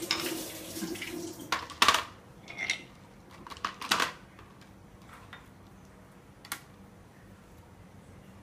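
Ice cubes clinking and rattling as they are picked off a ceramic plate and set down on a bamboo zaru mat, with several sharp clicks in the first four seconds and one more a little later.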